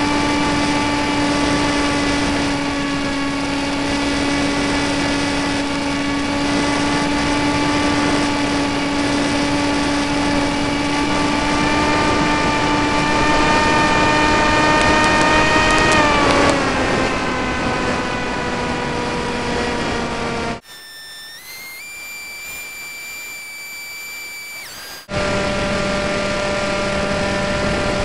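Model airplane's motor and propeller running steadily, heard from a camera on board, with airflow rush. The pitch creeps up, then falls away about halfway through as the throttle comes back. For about four seconds near the end the sound drops abruptly to a few clear, stepped whistling tones, then the motor sound returns.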